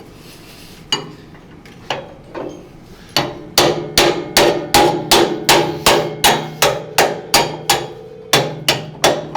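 Hammer blows on steel, each ringing, driving out the pins that hold a tractor loader bucket. A few spaced blows come first, then steady rapid hammering at about two and a half blows a second from about three seconds in.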